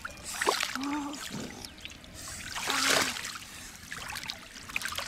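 Muddy shallow water splashing and trickling as hands grope through it for fish, in two bursts, about half a second in and again about three seconds in.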